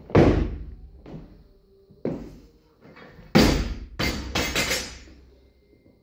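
Loaded weightlifting barbell with rubber bumper plates dropped from overhead onto the gym floor: a heavy thud, then more thuds and bounces with metallic rattling from the plates and collars, the loudest about three and a half seconds in.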